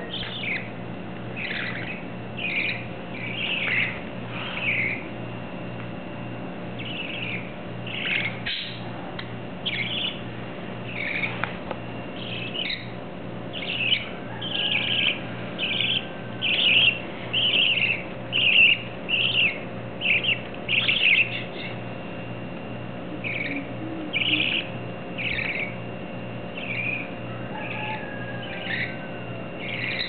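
Young budgerigar chicks, three to four weeks old, chirping: short, high calls repeated in quick runs, coming thickest about halfway through.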